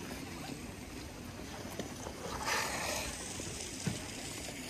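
Outdoor ambience dominated by wind on the microphone, a steady low rumble, with a brief hiss about halfway through and a soft knock near the end.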